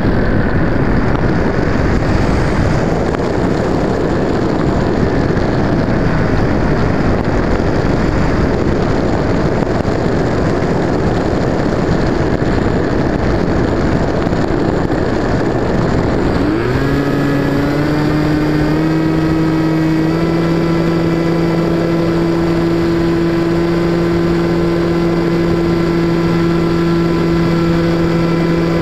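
Wind rushing past the onboard camera of an FPV Raptor model plane. A little over halfway through, its electric motor and propeller spin up with a short rising whine, then run as a steady hum that steps up slightly in pitch once.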